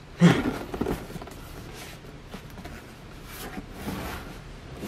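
Cardboard toy box being handled and turned around in the hands: faint rubbing and light tapping of cardboard, after a brief mumbled word near the start.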